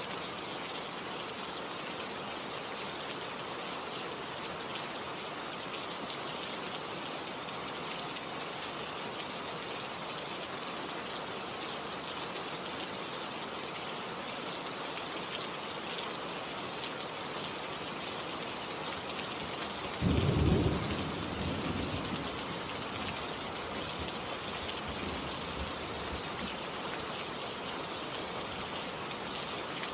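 Steady heavy rain falling. About two-thirds of the way in, a sudden loud clap of thunder breaks in and rumbles away over a couple of seconds.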